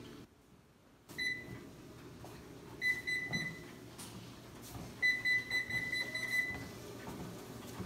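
Life Fitness treadmill console beeping as its keys are pressed: short high beeps about a second in and near three seconds, then a fast string of beeps lasting about a second and a half from about five seconds in. A low steady hum runs underneath.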